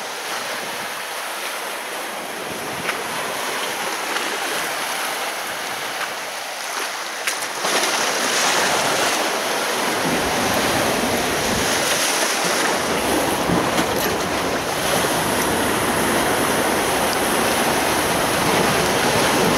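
Sea waves washing with wind blowing on the microphone. The wind noise grows louder about eight seconds in, adding a low rumble.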